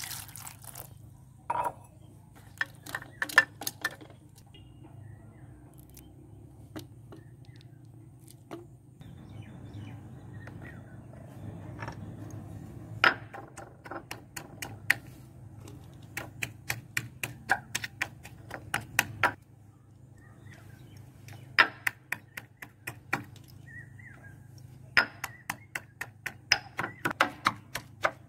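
Stone pestle pounding whole ber (Indian jujube) fruits in a black stone mortar: runs of sharp knocks, about three or four a second, with pauses between runs. Water is poured into a pan at the very start.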